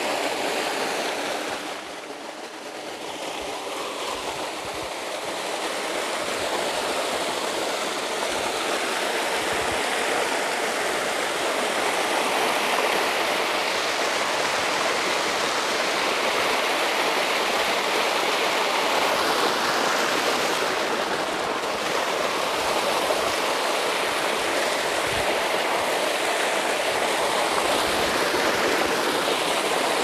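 Small hot-spring waterfall splashing steadily down rocks into a shallow pool, a continuous rush of falling water that dips briefly about two seconds in and then holds steady.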